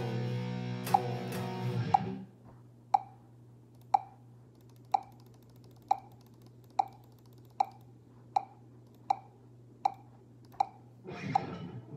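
Distorted electric guitar, a Les Paul-style solid-body through an amp, playing chords that stop about two seconds in. Then only a steady amp hum and a short pitched click about once a second, coming gradually faster, until the chords start again near the end.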